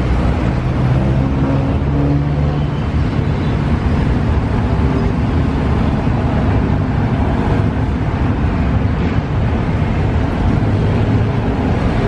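Steady low rumble of road traffic, with a low engine hum in the first few seconds.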